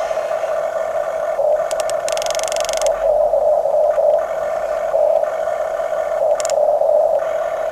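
Electric motors and plastic gearboxes of a Huina radio-controlled construction model whining steadily as it works, the sound shifting as different functions start and stop; a brief higher hiss joins about two seconds in.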